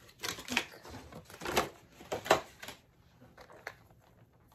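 Clicks and knocks of plastic toy pieces and packaging being handled: a cluster of sharp knocks in the first few seconds, the loudest about a second and a half and two seconds in, then lighter scattered clicks.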